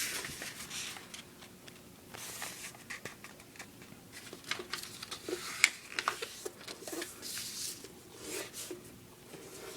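A square of paper being handled and folded: irregular soft rustles and crinkles with occasional sharp crisp ticks, the loudest a little under six seconds in.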